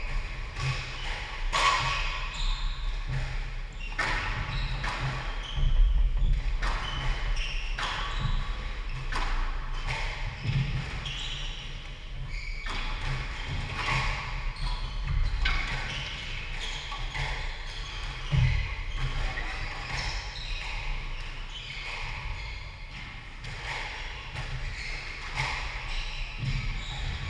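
Squash rally: the ball cracking off rackets and smacking against the court walls and floor every second or two, echoing in the enclosed court, with shoes squeaking on the wooden floor.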